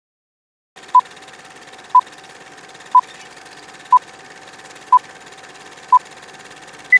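Film-leader countdown sound effect: six short, identical beeps a second apart over a steady hiss and hum, then a single higher beep at the end.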